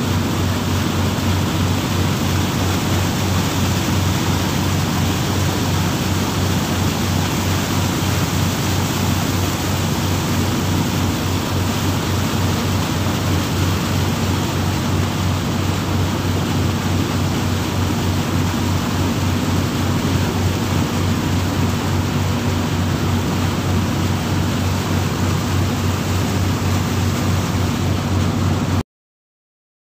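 Boat engine running steadily at speed, a low hum under the loud rush of the churning wake and wind behind the hull. It cuts off abruptly near the end.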